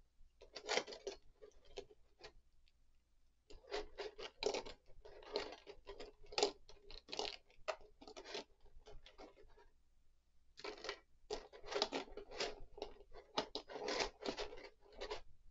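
Clear plastic blister tray and bag crinkling and crackling in bursts as hands pull small parts out of it. The crackling pauses briefly about two seconds in and again around ten seconds.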